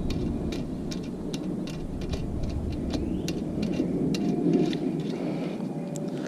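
Light irregular clicks and ticks of hands working on a dirt bike's clutch cable and its adjuster nuts, a few a second, over a steady low rumble.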